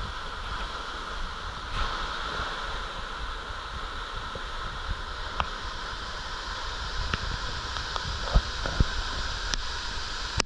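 Steady rushing water, with a few sharp knocks near the end.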